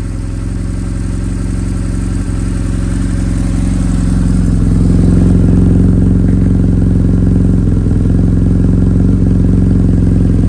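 BMW R1100S air/oil-cooled boxer twin engine running steadily at idle, its note holding one pitch. It grows louder over the first few seconds, then stays level.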